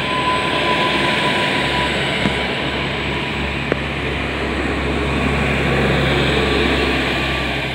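Newag Impuls 2 hybrid multiple unit passing close and pulling away: a steady low engine drone under the rumble of wheels on the rails.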